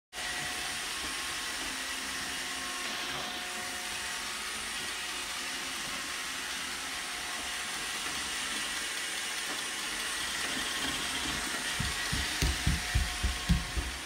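iRobot Roomba 650 robot vacuum running: a steady hiss of its suction motor and brushes, with a few faint steady tones in it. A quick run of low thumps comes near the end.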